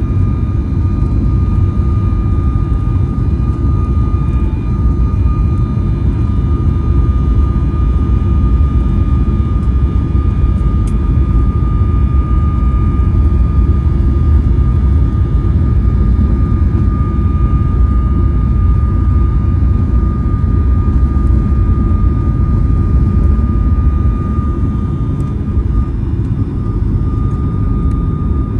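Boeing 737 MAX 9's CFM LEAP-1B turbofan engines at takeoff power, heard from inside the cabin: a loud, steady rumble with a constant high whine over it.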